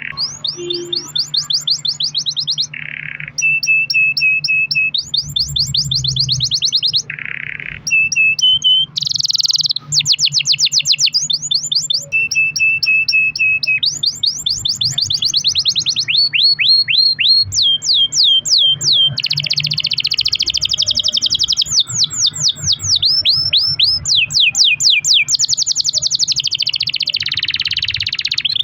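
Canary singing a long rolling song: fast trills of rapidly repeated sweeping notes, changing to a new phrase every second or two with only brief pauses.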